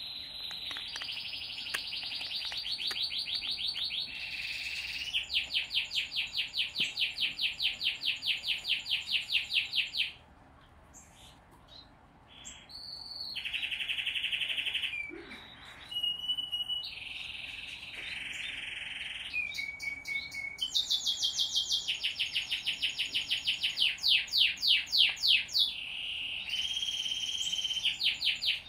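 Zebra finch × owl finch hybrid chick, 19 days old, giving hand-feeding begging calls: high chirps in long rapid trains, several a second, broken by a couple of short pauses.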